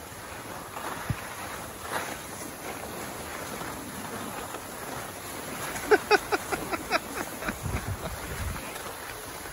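Skis scraping and sliding over packed snow, with wind noise on the microphone, a steady hiss. About six seconds in comes a quick run of about eight short high-pitched sounds.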